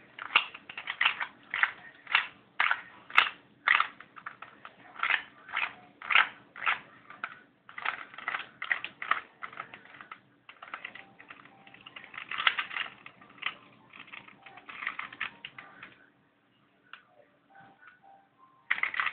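Plastic layers of a Rubik's-type cuboid twisty puzzle clacking as they are turned by hand in quick runs of moves, several clicks a second. The turning stops for a couple of seconds near the end, then starts again.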